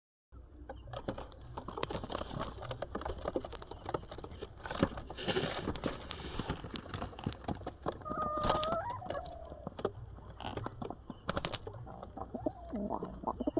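Pigeons moving about a wooden loft: scattered scratches, knocks and scuffling throughout, with two short bird calls, one about eight seconds in that slides down at its end, and another near the end.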